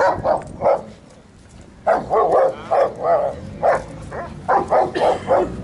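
A dog barking repeatedly in short, loud barks: a few barks, a pause of about a second, then a quicker run of about a dozen.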